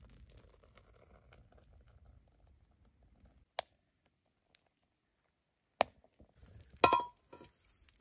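Faint crackling of kindling catching fire in a Finnish log candle. After a silent gap come two sharp knocks, then near the end a ringing metallic clink as the frying pan is set down on top of the log.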